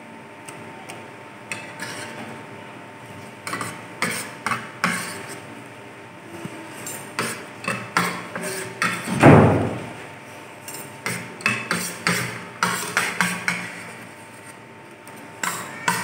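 Two metal forks clicking and scraping against a plate as spicy noodles are gathered up and eaten, in quick irregular clinks. About nine seconds in there is one louder, longer rushing sound that falls in pitch.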